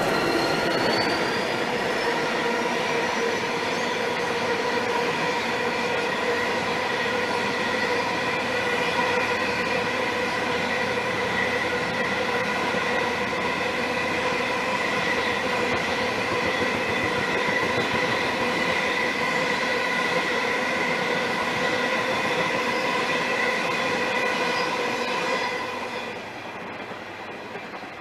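Loaded freight train with 81 and 82 class diesel locomotives passing close by, then a long run of loaded grain hopper wagons rolling past. The rolling noise carries several steady ringing tones and drops away about 26 seconds in as the train draws off.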